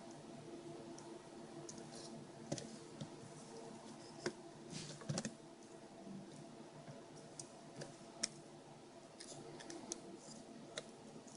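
Faint scattered clicks and taps of small plastic parts being handled while ribbon-cable connectors are worked on inside an opened GPS unit, over a low steady hum.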